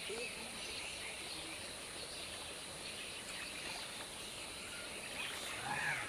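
Outdoor nature ambience: a steady high insect drone with scattered bird chirps, and faint human voices near the end.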